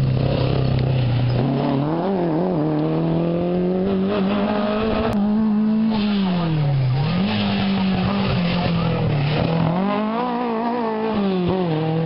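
Rally car engine at full throttle on a special stage, its pitch climbing and dropping several times as the driver lifts, changes gear and accelerates again.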